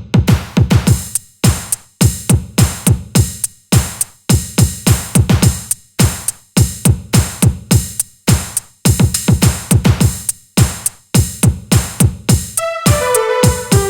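Electronic beat built on a drum machine: a steady pattern of punchy low kicks and crisp hi-hat-like hits. Near the end a synth line comes in, stepping down in pitch.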